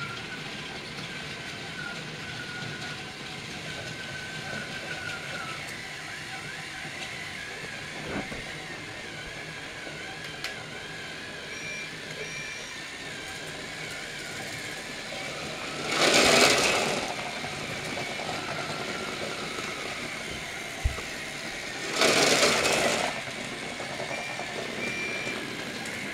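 Small electric motor of a Trackmaster motorized toy train whining steadily, wavering slightly in pitch. Two louder rushing, rattling noises of about a second each come about two-thirds of the way in and again near the end, with a sharp click between them.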